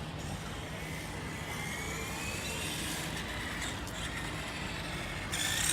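Electric motor of a 1:5-scale Nikko RC Ducati toy motorcycle whining, its pitch rising over a couple of seconds. Near the end a louder, higher whine starts suddenly.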